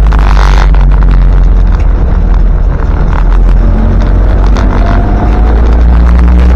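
Four-cylinder 2.25-litre diesel engine of a 1977 Land Rover Santana Series 3 running steadily under way, heard from inside the cab as a loud, constant low drone with light rattles. A brief rush of hiss comes just after the start.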